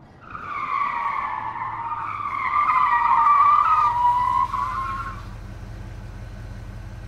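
Title-sequence sound effect: a long, high, wavering tone that swells in the middle and fades out about five seconds in, leaving a low steady hum.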